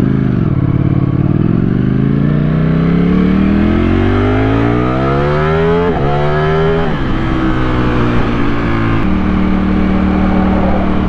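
Motorcycle engine pulling away from a stop and accelerating hard, its pitch climbing steadily, dropping sharply with upshifts about six and seven seconds in, then settling to a steady drone at cruising speed.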